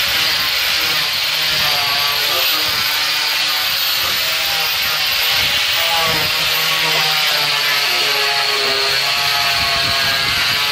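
Handheld angle grinder running continuously while grinding into a wooden slab to carve it, a steady high whine with the rasp of the disc on the wood.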